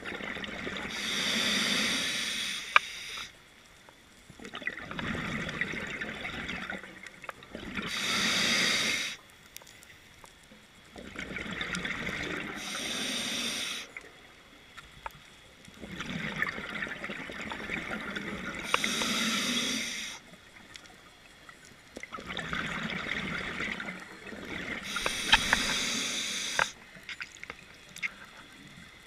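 A scuba diver breathing through a regulator underwater: regulator hiss and a rush of exhaled bubbles, about five breaths, roughly every five to seven seconds, with quieter pauses between them.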